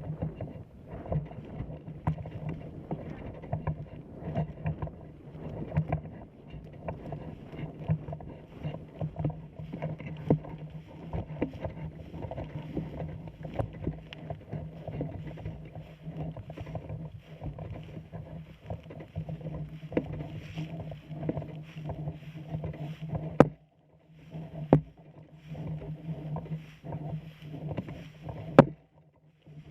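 Continuous rustling and rubbing noise with a low hum, dropping away briefly about two-thirds through, with a few sharp clicks near the end.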